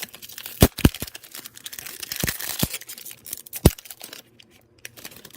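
A foil trading-card pack being torn open and its wrapper crinkled, with a few sharp crackling snaps of the foil, the loudest near the end.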